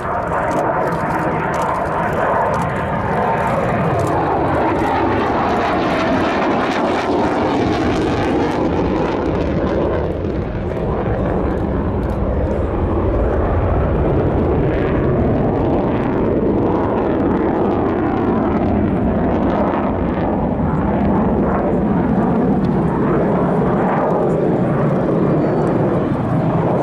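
Saab 37 Viggen's single Volvo RM8 afterburning turbofan, a loud, continuous jet noise as the fighter manoeuvres overhead. The tone shifts slowly as the jet turns, and it eases briefly about ten seconds in.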